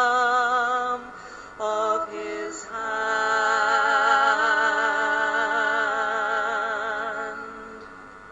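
Church music: a solo melody in long held notes with wide vibrato over steady low accompanying chords. The last long note swells and then fades away near the end.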